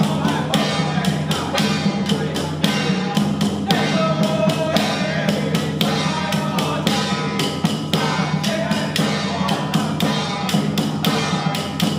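Music with a steady percussion beat of about four strikes a second and a wavering melody line over it.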